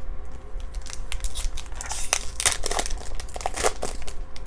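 A foil-lined baseball card pack being torn open and its wrapper crinkled: a run of crackly rustling that starts about a second in and is loudest in the middle.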